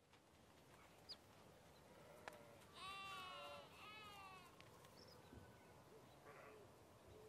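Faint ambience with an animal bleating twice in quick succession about three seconds in, its pitch wavering. A few short, faint high chirps are scattered around it.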